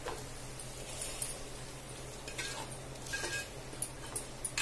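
Wooden spatula stirring masala with curd in a nonstick pan: a few faint, scattered scrapes and taps against the pan.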